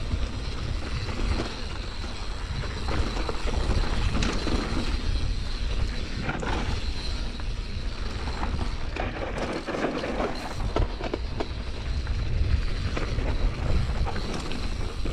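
Mountain bike riding down rough dirt singletrack: tyres rolling over stones and ground, with a steady clatter of small knocks and rattles from the bike. Wind rumbles on the microphone throughout.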